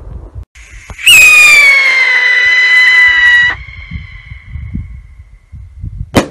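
Whistling stick rocket (apito de vara com tiro) in flight. About a second in, a loud whistle starts and holds for about two and a half seconds, sagging slightly in pitch, then fades. Near the end the report charge goes off in one sharp bang.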